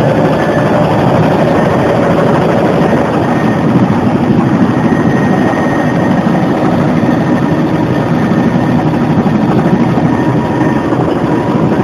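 Bell 206 JetRanger helicopter's Allison turboshaft engine and rotor running steadily, heard from inside the cabin: a loud, dense din with a faint steady whine above it.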